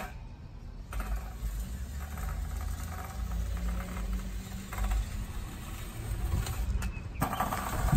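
36-inch landscape rake dragged back and forth through top dressing on a lawn, spreading and levelling it: a steady scratchy rasp of the tines through grass and soil, louder near the end.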